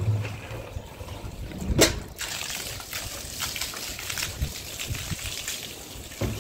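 Water from a hose gushing into a plastic jerry can and splashing over its side. A sharp knock comes a little under two seconds in, and after it the rush of water is louder and steadier.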